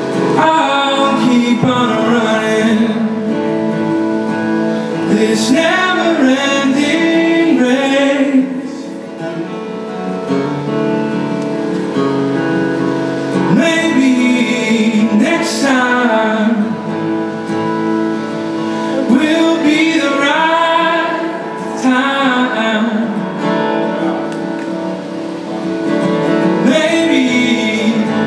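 A man singing solo with his own acoustic guitar, sung phrases over steady picked and strummed chords, broken by short stretches where the guitar plays alone.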